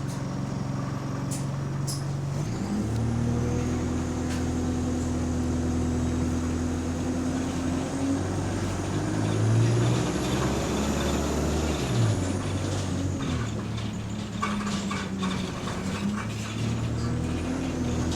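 A bus's engine and drivetrain running while the bus drives, heard from inside the passenger cabin, with rattles. The engine note shifts about two and a half seconds in and again around twelve seconds, and a faint high whine rises and falls in the middle.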